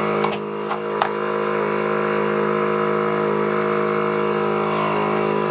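Steady machine hum, even in pitch throughout, with a few light clicks in the first second.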